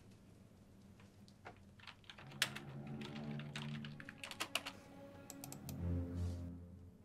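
Typing on a computer keyboard: irregular key clicks that come thickest in the middle of the stretch. Soft background music enters about two seconds in and swells near the end.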